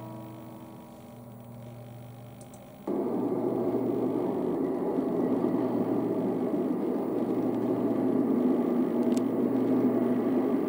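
The last guitar chord of the song rings and fades, then about three seconds in a steady blizzard wind noise cuts in abruptly and carries on.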